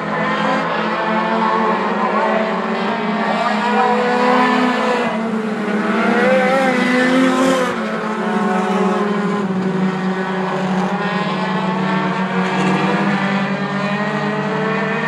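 A pack of four-cylinder short-track stock cars racing, many engine notes overlapping and rising and falling as the cars accelerate and lift through the turns.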